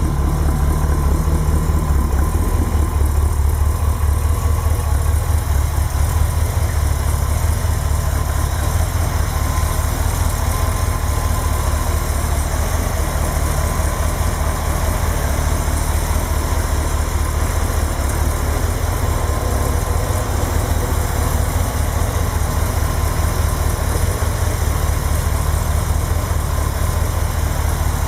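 1955 Buick Super's 322 cu in Nailhead V8 idling steadily, running again after a rebuild of the engine.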